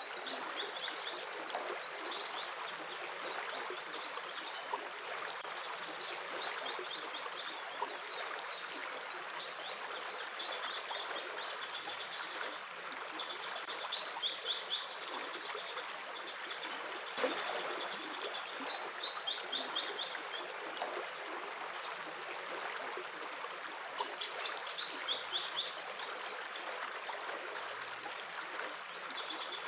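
Flowing stream running steadily, with small birds chirping in quick repeated trills that come and go every few seconds.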